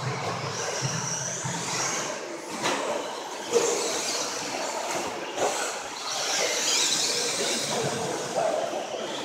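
Radio-controlled stadium trucks racing on a dirt track: their motors whine high and shifting, over a steady hiss of tyre and track noise. A few sharp knocks come through, one about three and a half seconds in and one about five and a half seconds in.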